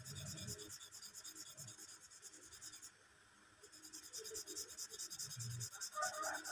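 Pen tip scratching on paper in rapid short back-and-forth strokes as a dark area is hatched in, pausing for about half a second midway. A brief pitched sound comes near the end.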